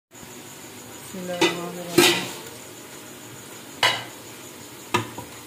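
Aluminium pressure cooker and its lid clanking: four sharp metallic knocks with a brief ring, the loudest about two seconds in.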